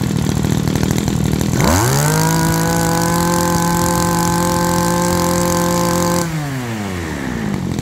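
Stihl 32 cc grass trimmer engine idling, then revved sharply to full throttle about one and a half seconds in. It holds a high, steady speed for about four and a half seconds, then winds back down to idle near the end.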